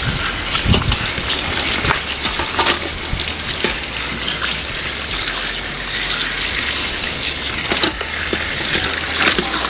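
Tap water running steadily onto whole spiny lobsters in a steel bowl as they are rinsed by hand, with occasional short clicks and knocks of shell against the bowl.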